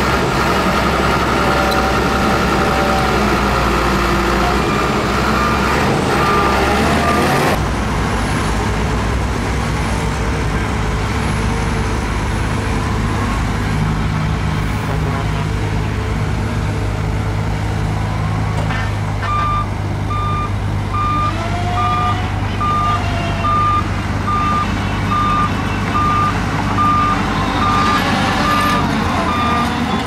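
Heavy diesel earthmoving machinery running steadily; its engine sound changes abruptly about seven seconds in. From a little past the middle, a reversing alarm beeps about once a second over the engines.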